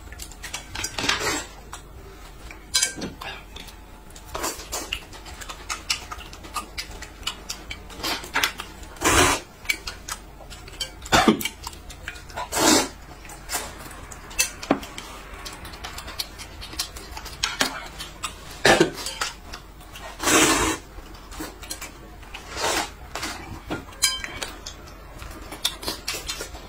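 Close-up eating sounds: noodles slurped from a metal bowl in short, irregular slurps, with chopsticks clicking against bowls and plates in between.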